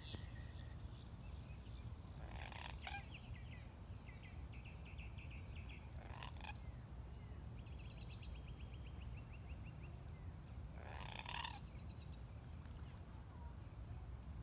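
Birds calling at a pond: four short harsh calls a few seconds apart, with quick chattering trills between them, over a low steady rumble.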